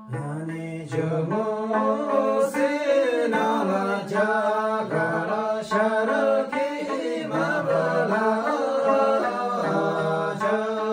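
A group of men singing a Tamang selo folk song together in a chanting melody, with a small plucked Tamang lute (tungna) going on under the voices.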